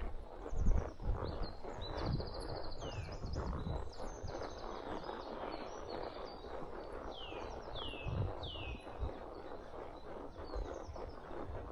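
Woodland songbirds singing: short whistled notes sweeping downward and buzzy trills, repeated through the stretch. Under them, the dull low thuds of a walking horse's hooves on a dirt trail, the loudest thud near the start.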